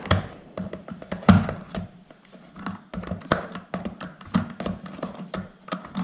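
Pliers clicking and scraping on the small nut that holds a mixer grinder's rotary switch as it is unscrewed: a run of irregular sharp taps and clicks, the loudest about a second in.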